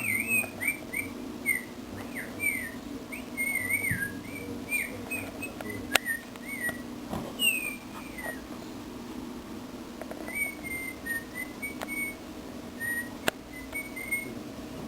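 Dog whining: a long run of short, high, squeaky whines that bend up and down in pitch, pausing for a couple of seconds near the middle, with a few sharp clicks.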